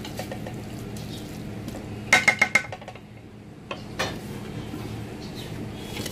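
A utensil clinking against the cooking pot as fried potatoes go onto the pilau rice: a quick run of four ringing clinks about two seconds in, then a single knock near four seconds in. A steady low hum runs underneath.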